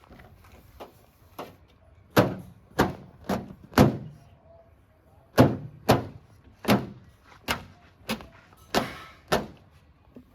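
A series of about eleven sharp knocks or bangs, one roughly every half second, in two runs with a short pause between them.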